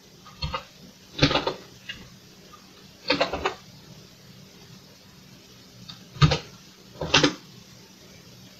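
Computer keyboard keys pressed in short clusters of sharp clacks, a few keys at a time with pauses between, as numbers are typed in.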